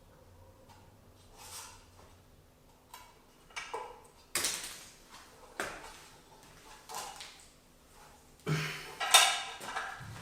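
Irregular knocks and clatter of a wall-charger mounting bracket and a small spirit level being handled and set against the wall to level the bracket, with the loudest knocks near the end.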